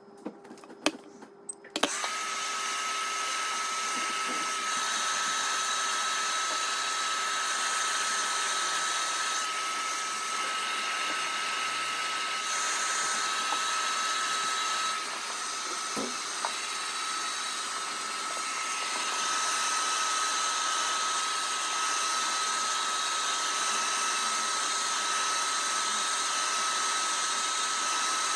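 A few clicks, then a hair dryer switches on about two seconds in and runs steadily, a rushing blow with a constant high whine. It is in use blow-drying hair.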